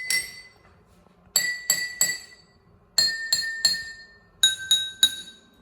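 A metal spoon tapping tall drinking glasses filled with water to different levels, three quick taps on each glass. Each glass rings with a clear tone, and each group is lower in pitch than the one before, so the notes step down a scale.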